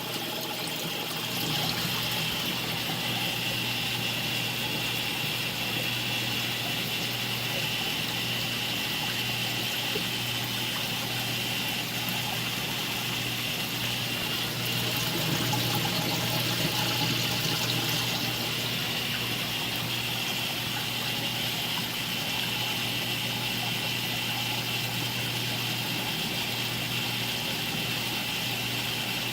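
Aquarium water circulating: a steady trickle and splash of running water over a low, steady pump hum.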